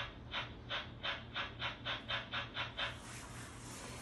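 Steam-train chuffing: about a dozen quick breathy puffs that speed up, then a soft, high steam-like hiss near the end.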